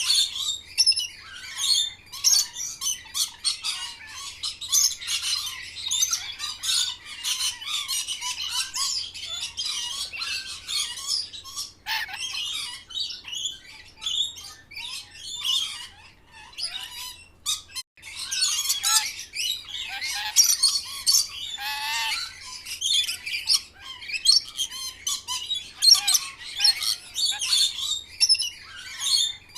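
Green parrot chatter: rapid high-pitched squawks and chirps, nearly continuous, with a brief lull about two-thirds of the way through.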